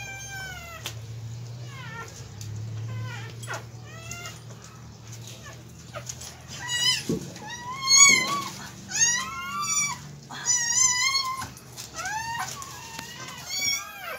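Newborn puppies crying in high, wavering, meow-like squeals, several in a row. The squeals grow louder and more frequent about halfway through.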